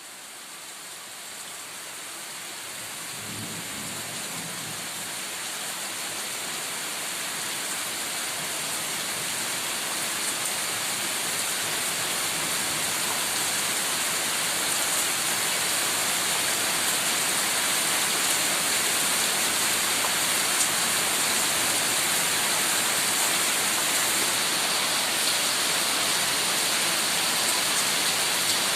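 Heavy rain falling steadily in a dense, even hiss, fading in and growing louder over the first fifteen seconds or so. A brief low rumble comes in about three seconds in.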